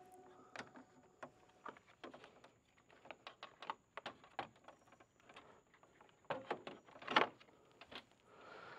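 Black plastic engine-bay cover on a Subaru Crosstrek being lifted and fitted back into place: scattered clicks and knocks of plastic parts, the loudest about seven seconds in.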